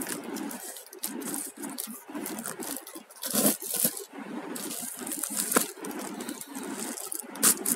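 Hands handling a shrink-wrapped cardboard speaker box: plastic wrap crinkling and cardboard rubbing. A few sharp clicks and taps come about halfway in and near the end.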